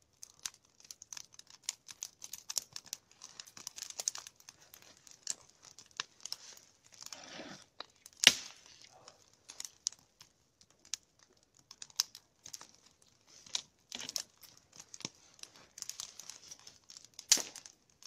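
Log fire crackling: spruce twigs and needles burning along the top of a nodya log, with irregular sharp pops, the loudest about eight seconds in and again near the end.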